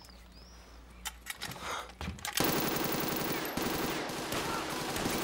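Quiet at first with a few faint clicks and two short high chirps, then about two and a half seconds in a submachine gun opens up in a long, rapid automatic burst of evenly spaced shots.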